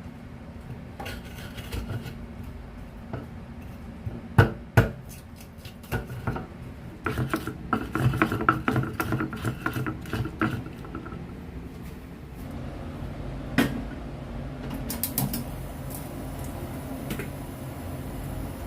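Kitchen utensils and dishes clattering as spices are prepared: a couple of sharp knocks about four and a half seconds in, a busy run of clinks and scrapes in the middle, and one more knock later, over a steady low background noise.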